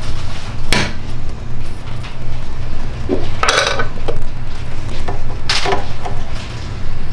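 Metal hand tools and bow-press parts clinking and rattling in short handfuls, a few separate times, with a longer rattle about halfway through, over a steady low hum.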